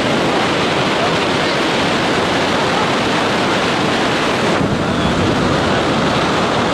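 Steady rush of wind buffeting the camera microphone during a tandem parachute descent under an open canopy. The hiss softens a little about four and a half seconds in.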